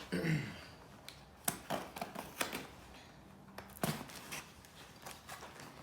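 Cardboard boxes and packaging being handled and opened: scattered sharp clicks and taps with short rustles.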